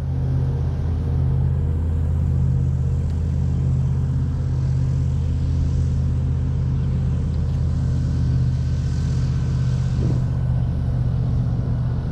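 A boat engine running at a steady, low-pitched drone.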